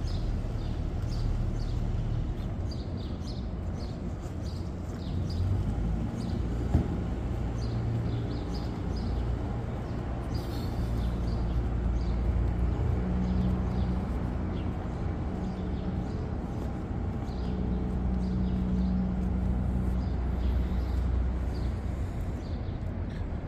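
Birds chirping again and again over a steady low rumble of city traffic.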